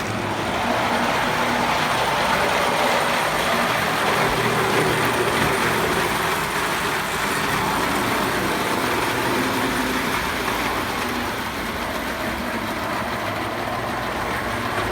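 Marx tinplate O-scale work train running on its track, pulled by two diesel locomotives in tandem: a steady whir and rattle of electric motors, gears and wheels. It gets slightly quieter about eleven seconds in.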